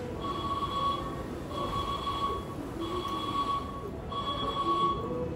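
Railway platform electronic warning tone: one-second beeps at a single pitch, repeating about every 1.3 s, over the rumble of the station.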